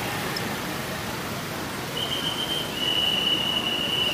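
Street traffic noise, with a shrill steady tone sounding twice in the second half: a short blast, then a longer one.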